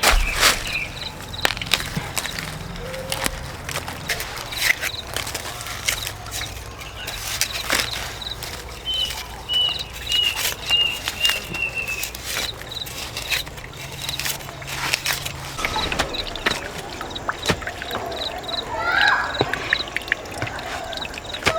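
Irregular knocks and water sloshing outdoors, with a quick run of about seven short high chirps about halfway through and a brief voice near the end.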